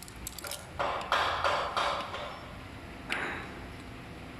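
Handling noise from fitting a scooter steering damper: a quick run of light clicks, then scraping and rubbing of hands and metal parts about a second in, with one more scrape near the end.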